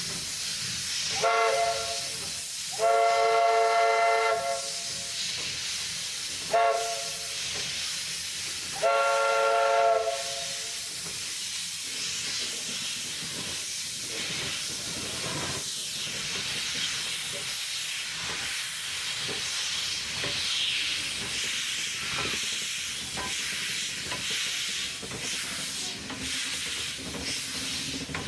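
Steam whistle of the fireless Heisler locomotive No. 6 blown four times: short, long, short, long. Its steam comes from a stored charge rather than an onboard boiler. A steady hiss of escaping steam runs underneath, with scattered clanks in the second half.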